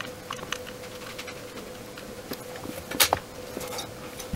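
Small clicks and taps of hands and tools working on a circuit board, with one sharper click about three seconds in, over a steady faint hum.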